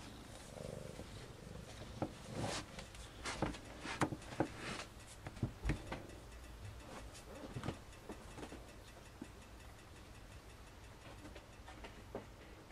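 A litter of newborn kittens purring low, with scattered soft clicks and rustles that are busiest in the first half.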